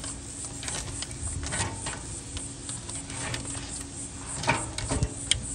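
Metal grill tongs clicking and scraping against the cooker's grate and the crab leg shells as the legs are turned, in irregular short clicks, over a faint steady hum.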